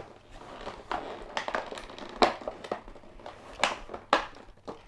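Plastic toy parts handled and pushed together: irregular sharp clicks and knocks with some crinkling, a few of the knocks louder than the rest.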